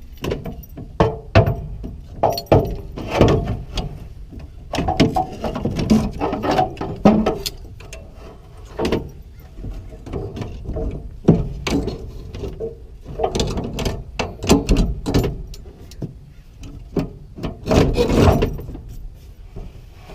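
Irregular metal clanks, knocks and scrapes as steering column parts are handled and the extension adapter is worked onto the column shaft.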